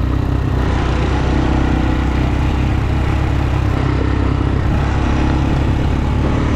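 ATV engine running steadily at an even speed while riding, heard from the rider's seat.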